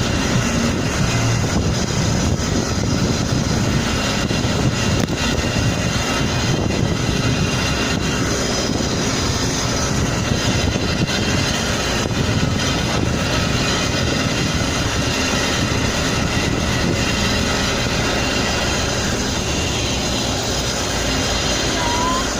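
Steady vehicle noise: an engine running with road and traffic sound, unbroken throughout. A brief high tone sounds near the end.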